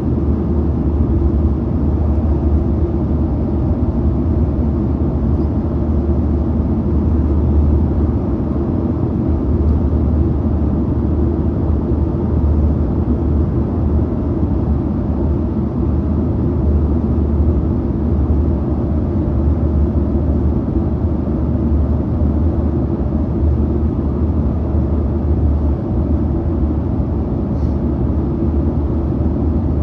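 Steady low roar inside the cabin of a Boeing 737-900ER in flight: engine noise and airflow heard from a forward window seat.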